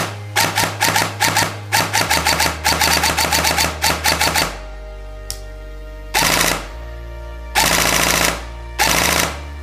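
Systema PTW M4-A1 electric airsoft rifle, fitted with a standard sector gear and run on a 7.4 V LiPo battery, firing: a fast string of single shots for the first four seconds or so, then three short continuous bursts. Background music plays underneath.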